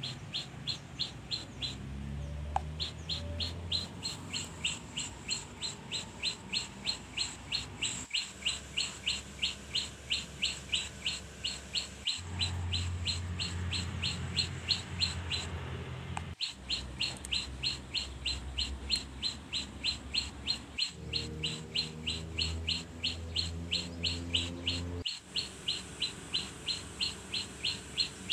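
A small bird chirping over and over in an even rhythm, about three short high chirps a second, with a brief pause partway through. A low rumble lies underneath.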